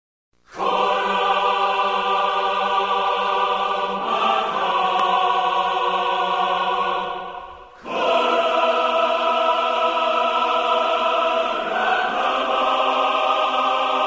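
Background music: a wordless choir singing long held chords that change every few seconds. It starts about half a second in, fades out about seven seconds in and comes back a moment later.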